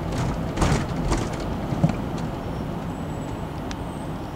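A car creeping in slow traffic, heard from inside the cabin: a steady low engine and road rumble, with a few short knocks in the first two seconds.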